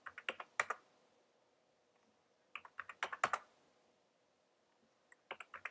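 Computer keyboard typing in three short bursts of a few quick keystrokes each: one at the start, one about halfway, and one at the end.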